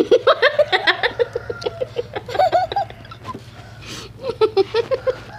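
Girls laughing: runs of quick, short giggles, broken by a pause or two.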